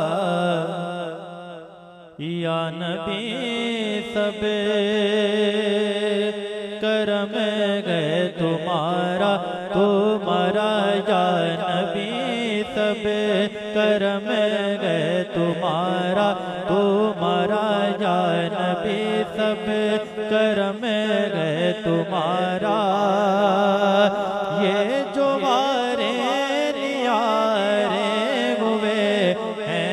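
A man reciting a naat, singing solo into a microphone in long, ornamented held phrases over a steady low drone. The voice breaks off briefly near 2 s and comes back in.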